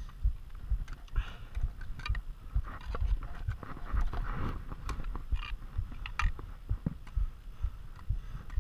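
Knocks, scrapes and clicks of a climber's gloved hands, boots and gear moving over granite rock, with handling thumps on a body-worn camera.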